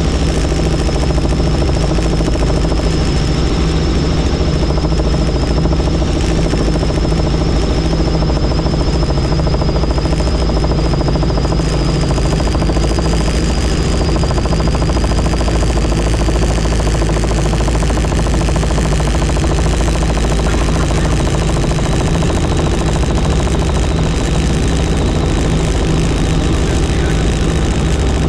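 Helicopter in flight: steady loud turbine engine and rotor noise, with a high turbine whine that slowly drifts a little lower over the first half.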